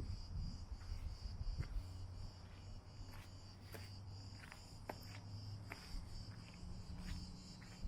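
Insects chirring in a steady high-pitched drone, with scattered clicks and footsteps on a path.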